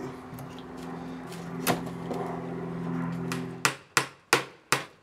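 Claw hammer striking nails into the pine boards of a wooden box: a single knock about a second and a half in, then a quick run of four or five blows near the end, about three a second. A steady low hum sounds underneath until the run of blows begins.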